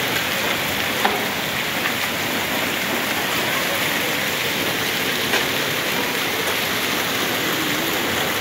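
Heavy rain and hail pelting a paved yard: a steady, dense hiss with a few sharper ticks of stones striking.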